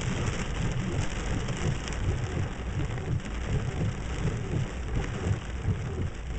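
Heavy thunderstorm rain falling steadily over a low rolling rumble of thunder.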